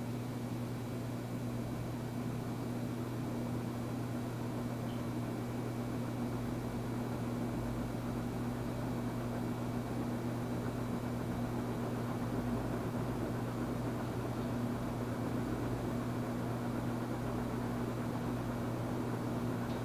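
Kichler 56-inch Industrial ceiling fan running at a steady speed: a low, even motor hum under a constant rush of air.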